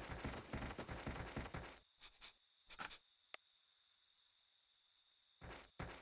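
Quick running footsteps that stop about two seconds in, over a faint, steady, high cricket trill that carries on. A couple of light ticks follow the footsteps.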